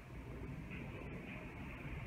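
Twin-engine jet airliner passing overhead, its engines heard as a steady, even rumble.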